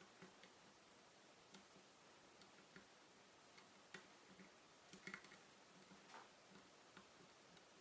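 Faint, irregular clicks from a lock pick working the pin-in-pin pin stacks of a Mul-T-Lock MT5 cylinder under tension, as pins are lifted and set. A small cluster of clicks comes about five seconds in.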